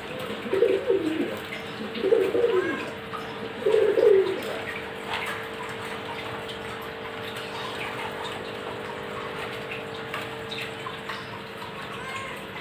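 A bird cooing: four low calls about a second and a half apart, stopping after about four seconds. A steady faint hum and a few faint high chirps follow.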